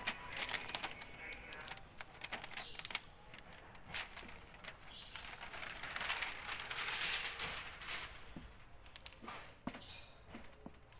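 Cloth wiping and scrubbing across the bare glass of an LCD TV panel: a rubbing hiss in strokes, heaviest around the middle, with scattered light clicks and knocks from hands and panel edges.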